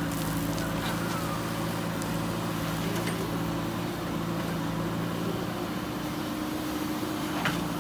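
JCB backhoe loader's diesel engine running steadily, its note shifting slightly about five seconds in, with a sharp click near the end.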